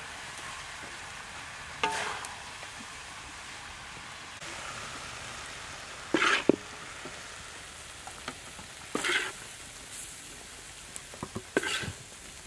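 Braised pig intestines and eggs sizzling steadily in a metal wok, while a metal spatula scrapes across the wok about four times as the pieces are scooped out.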